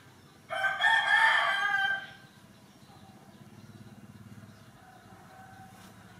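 A single loud animal call with a clear pitch, about one and a half seconds long, starting about half a second in.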